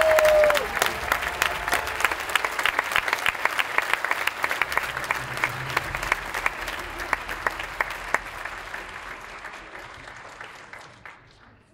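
A large audience in a theatre hall applauding, dense clapping that gradually thins and fades away to near silence by the end.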